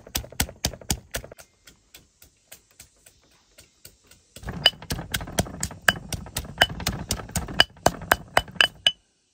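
Pestle pounding chillies, shallots, lemongrass, mountain-pepper seeds and shrimp paste in a mortar for a curry paste, in steady knocking strokes about three a second. The strokes are lighter in the middle and become louder, heavier thuds from about four seconds in.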